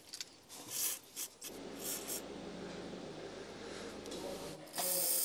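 Aerosol can of Svitol Professional Electric contact cleaner hissing in short spurts through its straw onto the power steering pressure sensor's electrical connector, with a few quick spurts about a second in and a longer spray near the end.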